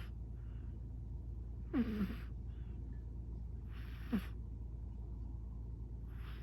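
A British Shorthair cat snoring in its sleep: two short snores about two seconds apart, each a breathy rasp with a pitch that falls, over a steady low hum.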